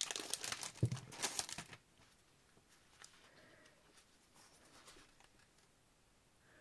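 Clear plastic packaging sleeve crinkling as a paper pad is slid out of it, for about the first two seconds. Then faint rustles and soft ticks as the pad's sheets are handled and leafed through.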